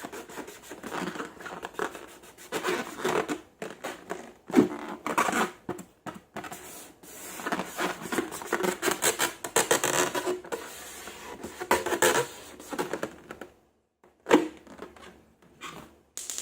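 Slime and rubber balloons being handled close to the microphone: irregular scratchy rubbing and crackling, with a sharp snap about four and a half seconds in and another near fourteen seconds.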